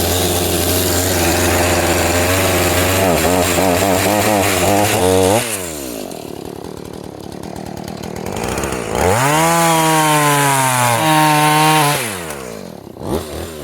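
Chainsaw cutting deep slots into the top of an oak stump: the engine runs at full throttle with its pitch wavering under load, drops back about five seconds in, revs up again a few seconds later, then falls off near the end.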